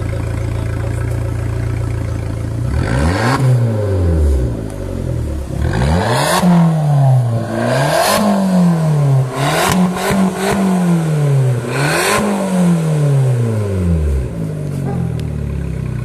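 Abarth's turbocharged four-cylinder engine and exhaust idling steadily, then revved hard about five times, each blip rising quickly and falling back, with a crackly rasp at the top of each rev, before settling back to idle near the end.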